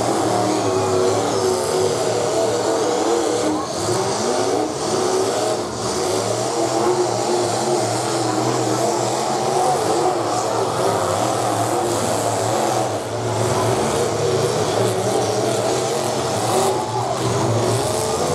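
Demolition derby trucks' engines running and revving hard in the arena, their pitch rising and falling as the trucks accelerate and push.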